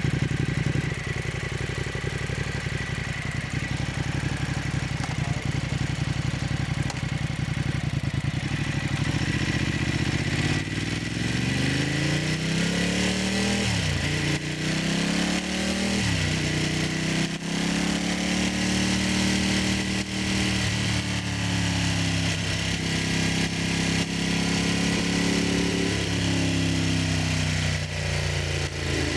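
Motorcycle engine idling steadily, then rising in speed, with two sharp dips in pitch before holding at a higher engine speed for several seconds, then dropping back and rising again near the end.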